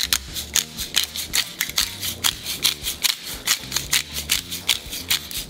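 Pepper mill grinding peppercorns onto a steak: a steady run of crisp crunching clicks, about four a second, that stops near the end.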